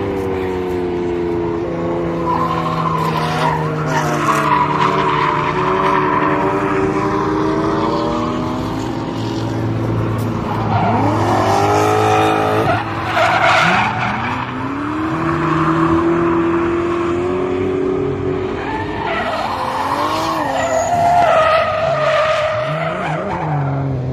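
Drift cars sliding through a corner, their engines held at high revs and rising and falling in pitch as they are revved, with tyres squealing.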